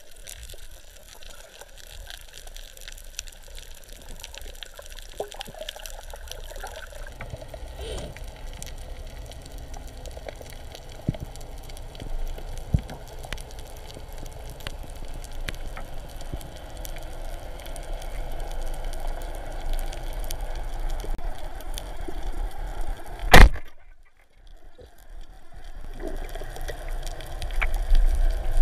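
Underwater sound through a camera housing: a steady wash of water noise with scattered faint clicks, growing louder and lower toward the end. About 23 seconds in there is one loud sharp crack, followed by a brief drop to near silence.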